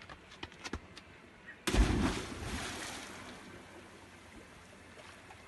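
A few quick running footsteps on gravel, then a person plunging into a pool of water: a sudden loud splash about a second and a half in that dies away over a second or so into water settling.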